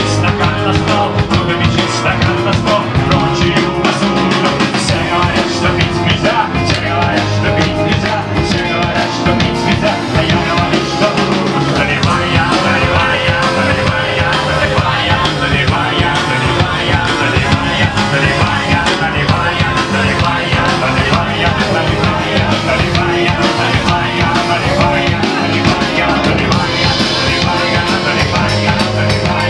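A rock band playing live at full volume, with drums and guitars and a voice singing.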